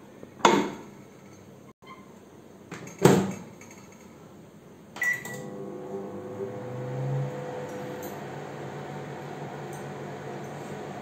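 Samsung convection microwave oven being loaded and started: a knock as the dish goes onto the turntable, a loud clunk as the door is shut about three seconds in, a short beep from the control panel, then the oven running with a steady hum.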